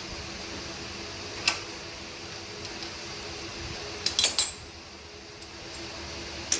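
Light metal clinks from tools and parts being handled during brake pad work: one about a second and a half in, a quick cluster of clinks around four seconds, and another near the end, over a steady low hum.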